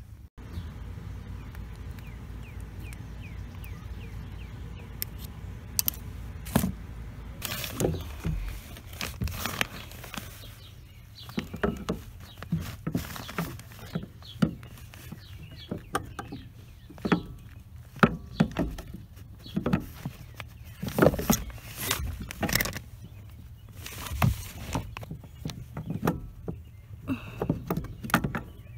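Irregular metal clicks, taps and clinks of hands and tools working a clutch master cylinder into place behind the pedals of a 2006 Toyota Tacoma. A steady low hum runs under the first several seconds before the clicks begin.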